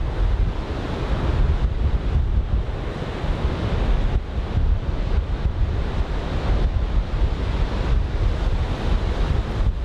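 Large typhoon-swell surf breaking and washing on a sandy beach, with strong wind buffeting the microphone in a constant low rumble.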